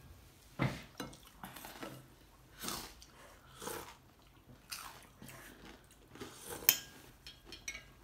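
A man eating instant noodle soup: soft chewing and sipping noises about once a second. Cutlery clinks sharply once against dishware near the end.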